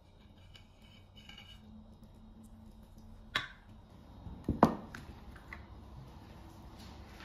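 A few sharp clinks and knocks of a metal cake server against a glass baking dish and a ceramic plate. The first comes about three and a half seconds in, the loudest pair just after four and a half seconds, and a few lighter ticks follow.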